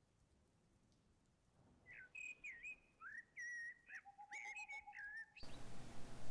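Faint whistling: a series of short whistled notes that slide up and down in pitch, starting about two seconds in. A steady hiss comes in abruptly near the end.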